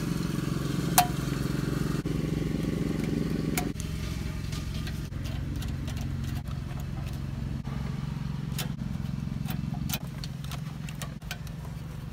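A steady engine-like drone runs throughout. Over it come a sharp metallic click about a second in and scattered small clicks later, from a Phillips screwdriver driving screws into the radio's steel anti-theft bracket.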